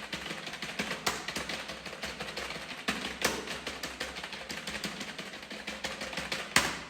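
Fast, continuous typing on a computer keyboard: a dense run of key clicks with a few harder strokes, the loudest single key strike coming near the end before the clicking fades out.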